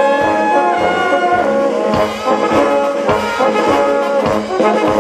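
Brass band playing a march with a steady beat, trumpets and trombones carrying the tune.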